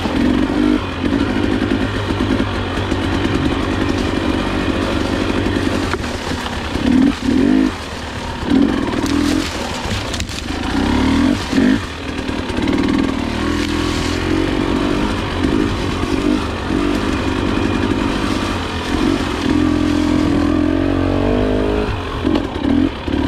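Husqvarna enduro dirt bike engine pulling up a steep dirt climb, its pitch rising and falling as the throttle is opened and eased again and again.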